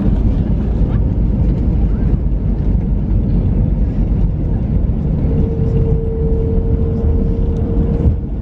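Cabin noise of an Airbus A321neo rolling down the runway just after landing: a steady low rumble of the engines and wheels, with a steady mid-pitched hum coming in about five seconds in.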